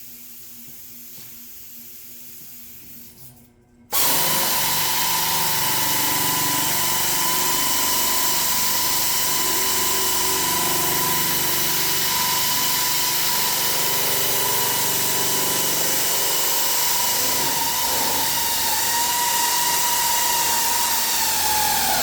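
A power drill spinning a homemade wheel of folded red scratch pad starts suddenly about four seconds in and runs steadily with a constant whine, scuffing the edges of a roof panel.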